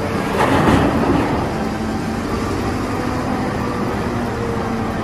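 Caterpillar 992G wheel loader's diesel engine running steadily while the loader tips its bucket of earth into a dump truck. A louder rush of noise, the load falling into the truck bed, peaks about half a second in.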